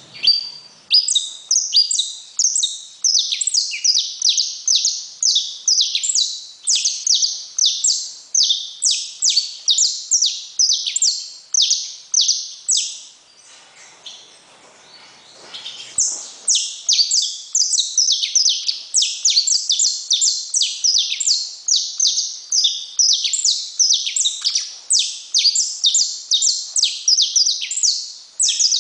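Saffron finch (canário-da-terra) singing: a long run of quick, high, downward-sweeping notes, about two to three a second. The song breaks off for a few seconds around the middle, then starts up again.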